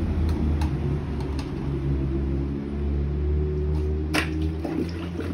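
Steady low mechanical hum with a few even tones above it, and a single sharp click about four seconds in.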